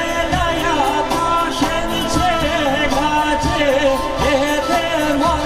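A woman singing an Albanian folk song into a microphone, her melody wavering and ornamented, over amplified accompaniment with a regular low beat.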